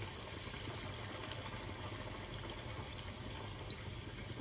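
Hot oil in a wok sizzling as battered onion-coated potato pakodas are dropped in to deep-fry: a steady hiss with a few small pops.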